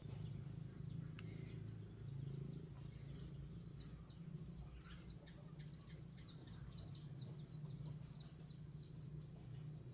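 Faint, rapid high chirping of birds, many short notes a second, over a steady low hum.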